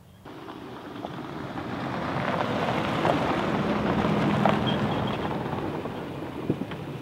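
Toyota Tacoma pickup driving past on a gravel dirt track: tyres crunching over gravel with the engine running, growing louder to a peak about four seconds in and then easing off, with a few sharp clicks of loose stones.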